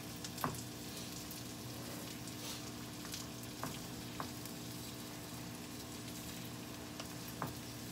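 A steady hiss from a saucepan of nearly boiling broth on a gas burner. A metal spoon scrapes toasted rice off a skillet into the pot, with several light clicks of spoon on pan.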